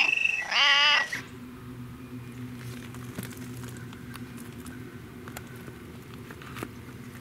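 Domestic cat meowing: a call that ends right at the start, then a second, longer meow with a wavering pitch about half a second in. After that only a much quieter steady low hum with faint clicks.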